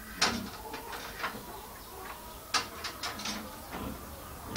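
Irregular sharp clicks and knocks of hand work with tools and parts, the loudest just after the start and again about halfway through.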